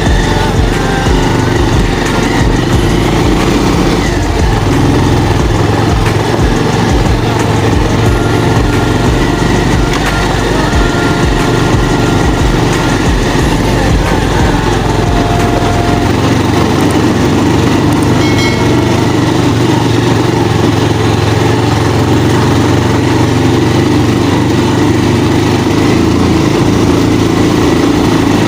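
Motorcycle engine running steadily while being ridden, with a continuous noisy rush over it.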